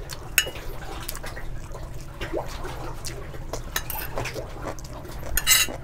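Wet chewing and mouth sounds of someone eating rice and kimchi, with a few light clicks of a spoon on a plate and a short hiss near the end.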